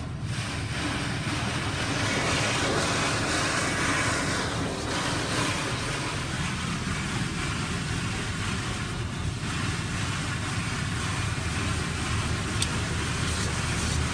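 Coleman Hanna FusionX automatic car wash running: a steady rushing noise over a low rumble, starting abruptly.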